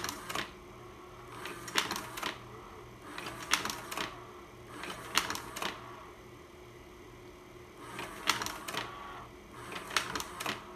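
Vivitar slide projector cycling its slide-change mechanism: six quick bursts of mechanical clacks, each about half a second long, spaced roughly one and a half to two seconds apart, with a longer gap in the middle. Underneath, the projector runs with a steady hum.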